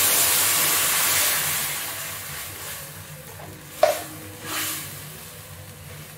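Canned coconut milk poured into a hot frying pan of pork belly, sizzling loudly at first and dying down over a couple of seconds. Near four seconds in there is a sharp clack, then a brief scrape of a spatula stirring the pan.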